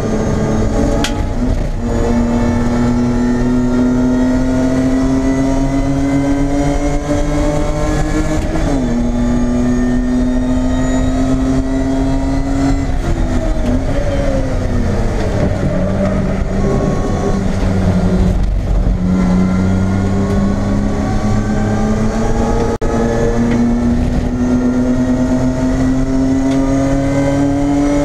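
BMW E30 race car's engine heard from inside the stripped cabin at racing speed, over a steady rush of road and wind noise. The revs climb steadily, drop at a gearchange about nine seconds in, fall away around the middle, then climb again as the car pulls through the gears.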